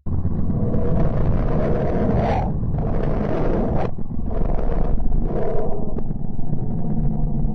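Deep rumbling roar of noise, a space-sound recording of the kind presented as a planet's sound, starting abruptly. A hissy upper layer switches on and off in several blocks over the first six seconds, then fades under the low rumble.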